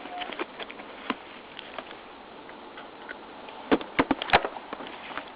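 Small scattered clicks and taps, then a quick run of several sharp, loud clicks about four seconds in.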